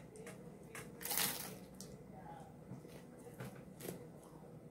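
Crunching bites and chewing of a crisp fried tortilla, from a Taco Bell Mexican pizza, close to the mouth. It comes as a series of short crackly crunches, the loudest about a second in.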